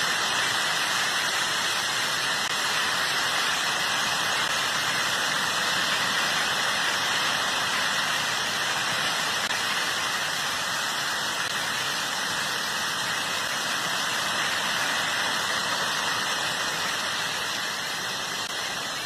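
Steady, even rushing noise with no distinct impacts or changes.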